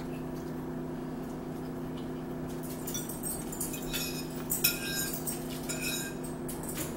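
Forks clinking and scraping on plates during a meal: a run of light, sharp clicks in the second half, the loudest about four and a half seconds in, over a steady low hum.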